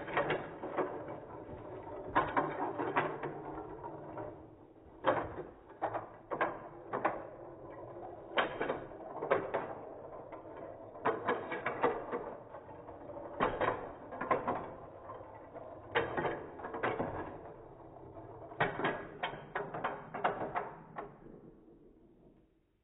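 Small toy cars clattering down a wooden zigzag click-clack ramp, one after another, as clusters of sharp clicks every second or two. The clicking dies away near the end.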